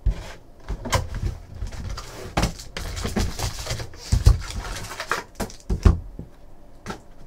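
Foil hockey-card packs crinkling as they are pulled out of a cardboard Rookie Anthology box and stacked on a table, an irregular run of crackles with several light knocks.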